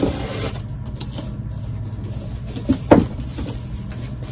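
Box cutter slicing the packing tape on a cardboard box, with cardboard scraping and rustling as the flaps are worked open, and one sharp, loud crack of cardboard just under three seconds in. A steady low hum sits underneath.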